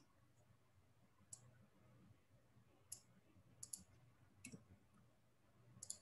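A handful of faint, isolated computer keyboard keystrokes, about six single clicks at irregular intervals, over near silence.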